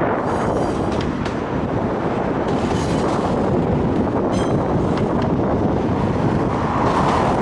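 Autorack freight cars of a passing train rolling by, a steady rumble of steel wheels on rail with a few faint clicks, and wind buffeting the microphone.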